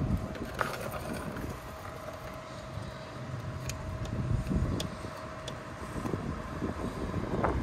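Wind rumbling on the microphone over faint street traffic, with a few light clicks midway and a faint steady tone that stops near the end.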